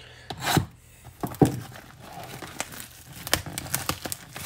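Plastic shrink wrap being torn and peeled off a sealed cardboard trading-card hobby box, crinkling with sharp crackles, the loudest about a second and a half in.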